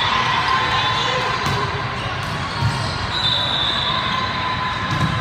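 Volleyball rally in a large gym: ball contacts thumping over a constant hubbub of players and spectators, with a high whistle sounding for about a second about three seconds in.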